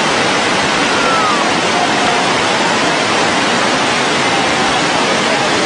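Steady, loud roar of a river in flood, the rushing water drowning out all else.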